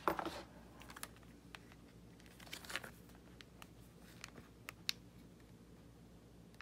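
Small retail box and packaging handled by hand: a brief rustle at the start, then scattered light clicks and taps, with another short rustle about two and a half seconds in.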